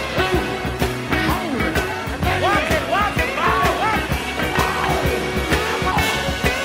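Music with a steady drum beat and a singing voice.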